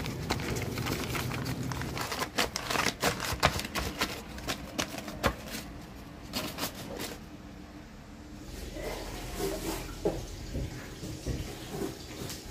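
Paper crackling and rustling as it is rubbed against the pork skin to dry it, many sharp crinkles in the first half. Later comes a soft splashing of cooking oil poured in a stream into a wok.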